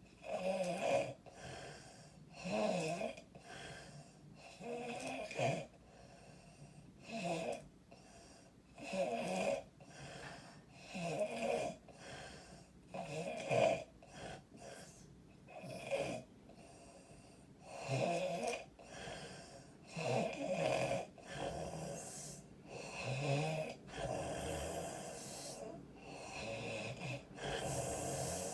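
A woman snoring loudly through an open mouth while sick, in repeated bursts about every two seconds.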